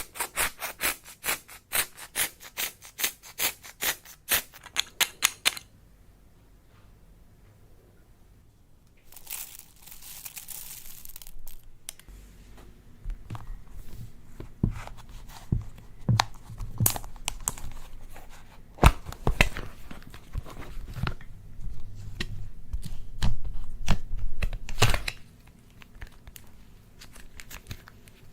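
Close-up slime and makeup handling sounds. A quick run of sharp clicks, about four a second, for the first five seconds; a rustling, tearing noise for about two seconds around the nine-second mark; then low sticky squishing with scattered clicks and pops for about thirteen seconds.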